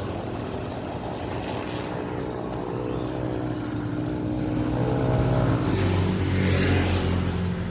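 A small engine running steadily, growing louder and a little higher from about four and a half seconds in, with a rushing hiss near the end.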